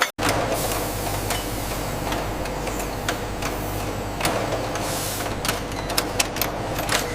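Ammunition production machinery running with a steady hum, with sharp mechanical clicks that come more often in the second half.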